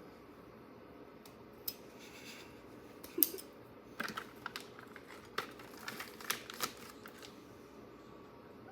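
Faint, scattered clicks and taps of a spoon and dishes being handled while measuring and mixing ingredients. They begin about three seconds in, the loudest coming first, and die away after about seven seconds.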